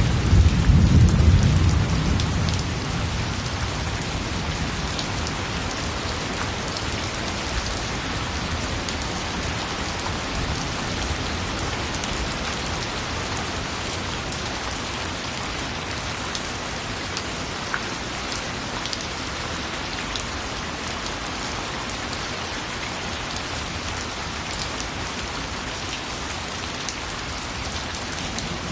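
Steady rain falling, with a low thunder rumble in the first two seconds that fades away.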